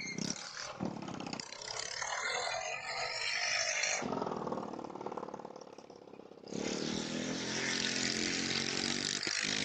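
Motorcycle engine running and revving as the bike rides around, fading for a couple of seconds around the middle and then coming back louder.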